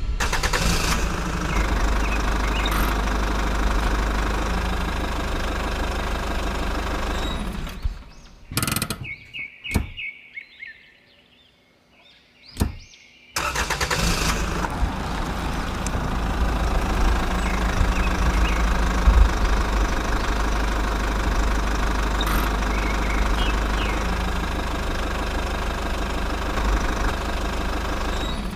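Tractor engine running steadily. It cuts out about eight seconds in, leaving a gap of about five seconds, then runs on again.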